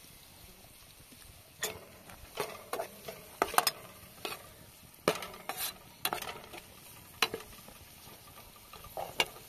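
Metal slotted spoon stirring sliced onions in an aluminium frying pan, scraping and clinking irregularly against the pan from about a second and a half in, over a low, steady sizzle of the onions frying in oil.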